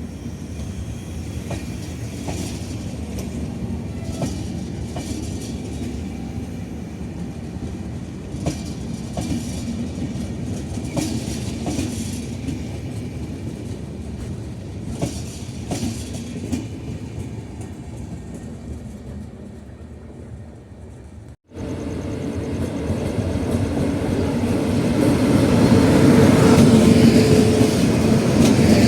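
Indian Railways passenger coaches running along the track: a steady rumble with the clickety-clack of wheels over rail joints. About two-thirds of the way in the sound cuts out for a moment, then returns as a louder run that swells near the end.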